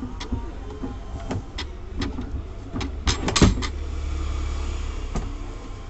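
Small fire burning on top of a square metal tin: scattered crackles, a quick cluster of sharp pops about three seconds in, then a low rumble for a couple of seconds.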